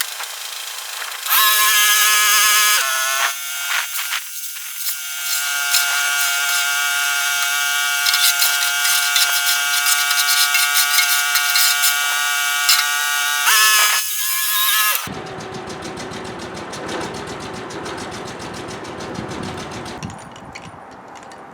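A power drill whining in a few short trigger bursts, then running steadily for about nine seconds before stopping, followed by a quieter, even noise.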